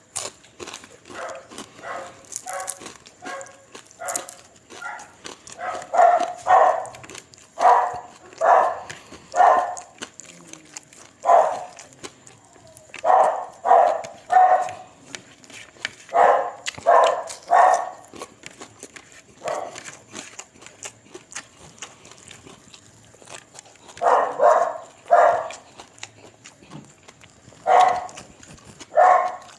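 A dog barking again and again in clusters of two or three short barks, with pauses of several seconds between clusters. Under the barks there is faint clicking and smacking from eating.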